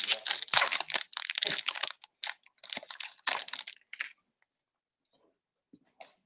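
Foil wrapper of a hockey card pack crinkling and tearing as it is ripped open, dense crackling for about two seconds, then a few shorter rustles.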